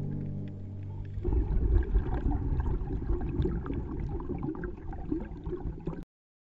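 The last held notes of soft background music fade out in the first second. A rough, rumbling noise with scattered crackles follows and cuts off abruptly about six seconds in.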